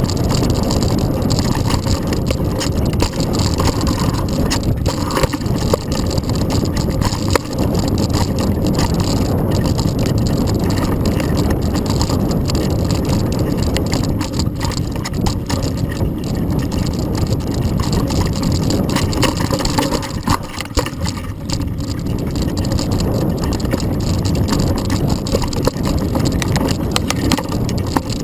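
Specialized Rockhopper Pro mountain bike ridden fast down a dirt singletrack, heard through a handlebar-mounted camera: a continuous rumble of tyres over the dirt with the bike and camera mount rattling, and frequent knocks over bumps.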